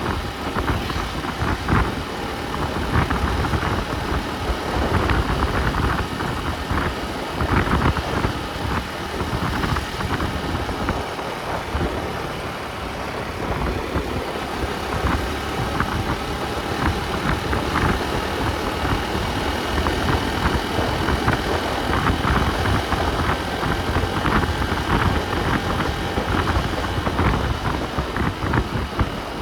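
A motor vehicle on the move: steady engine and road noise, with many small rattles and clicks throughout.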